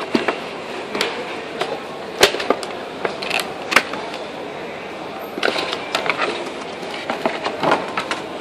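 Cardboard mouse box and its plastic wrapping being handled: irregular scrapes, rustles and sharp clicks as the inner tray slides out of its cardboard sleeve. The two loudest snaps come a little over two and nearly four seconds in, with a busy run of rustling near the end.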